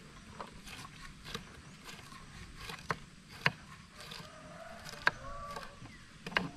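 Kitchen knives chopping vegetables on thick wooden chopping blocks: sharp, irregular knocks of the blades striking the wood, roughly one a second, from several people cutting at once.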